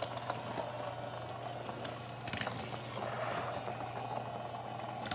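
Motorized Thomas mini-train track running with a steady low hum from its motor, with light plastic rattling of the small trains on the track and a sharp click about two and a half seconds in.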